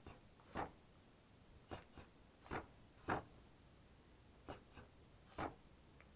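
Boxing-glove punches landing on a wall-mounted striking pad: sharp thuds thrown singly and in quick pairs, about nine in all, with short pauses between combinations.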